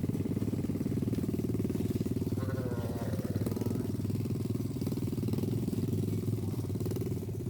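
A small engine running steadily with a fast, even pulse, and a short wavering call over it about two and a half seconds in.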